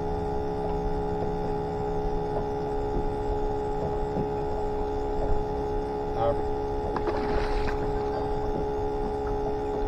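Steady electric whine of a bait tank's pump, several fixed tones held without change. A few faint clicks sit on top, and there is a short hiss about seven seconds in.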